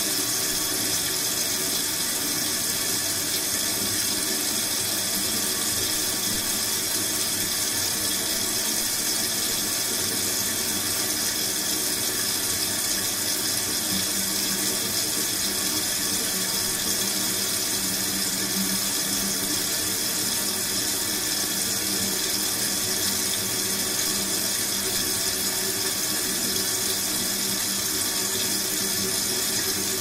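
Kitchen sink tap running steadily, a stream of water falling into the basin with an even hiss.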